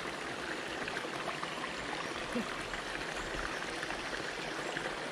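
Steady rush and trickle of a small rocky stream with little waterfalls.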